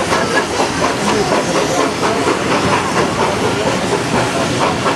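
Heritage steam train running, with steady rail noise and steam hiss.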